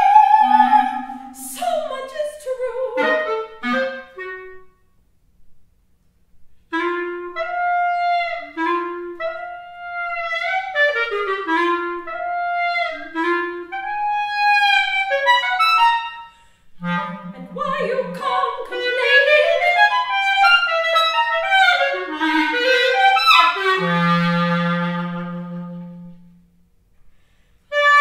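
Clarinet playing an expressive unaccompanied phrase, its notes bending and falling in pitch, with a brief high squeak about a second and a half in and low held notes near the middle and towards the end. A soprano's held note fades out at the very start.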